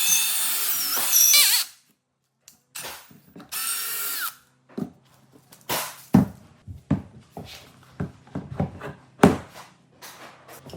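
A power drill running for almost two seconds with its pitch shifting, stopping, then running again in two short bursts, the second winding down. After that come a series of irregular sharp knocks and taps.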